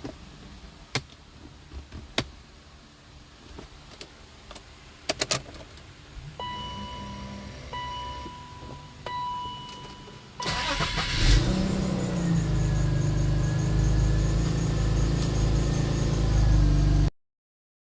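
A few clicks, then an electronic warning chime beeping on and off, then the 1998 BMW 528i's inline-six is cranked and catches, starting by the key with the neutral safety switch bypassed, and settles into a steady idle that cuts off abruptly near the end.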